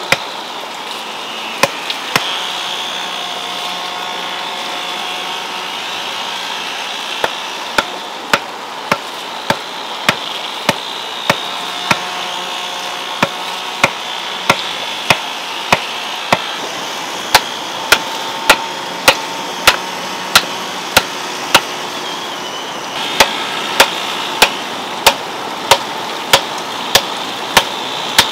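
Wooden mallet striking the top of a wooden stake, driving it into garden soil with sharp knocks. A few strikes come about two seconds in, then a pause, and from about seven seconds in they keep a steady beat of about one every 0.6 s.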